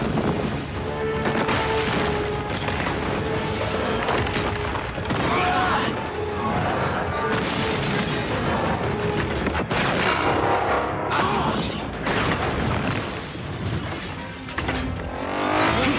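Action-film soundtrack of a giant-robot (jaeger) fight: orchestral score mixed with heavy mechanical whirring, metal impacts, booms and shattering glass and debris, with a rising whine shortly before the end.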